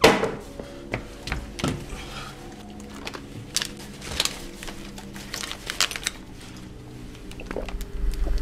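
Plastic bottles being handled: scattered sharp clicks and knocks, over a low held music drone. A loud sharp hit opens it.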